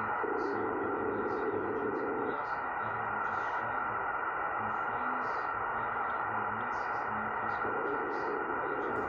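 Shortwave receiver tuned to 11.389 MHz: steady static hiss carrying a rough, snore-like signal. The signal comes in two stretches of about two seconds, one just after the start and one near the end.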